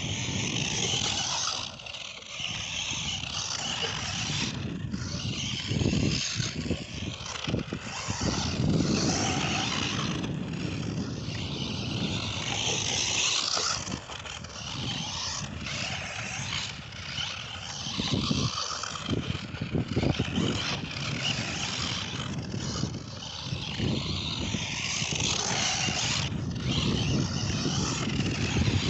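Tamiya TL-01 electric radio-controlled car driving on loose sandy dirt: its motor and drivetrain running and its tyres scrabbling on grit, the noise rising and falling as it accelerates and turns.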